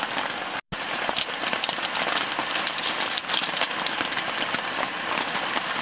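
Steady rain falling, with many sharp drop ticks through it. The sound cuts out for an instant about half a second in.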